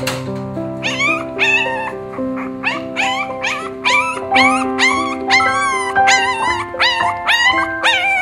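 Very young French bulldog puppy whining and squealing, short high cries that rise and waver, about two a second, starting about a second in. Piano music plays underneath.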